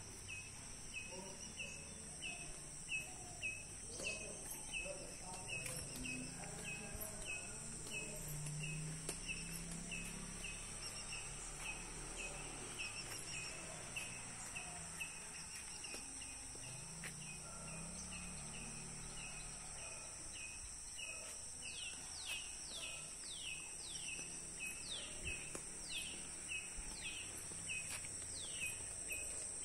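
Garden bird and insect sounds: a steady high-pitched insect drone, with a bird repeating a short call about twice a second. From about two-thirds of the way through, a run of falling whistled notes comes about once a second.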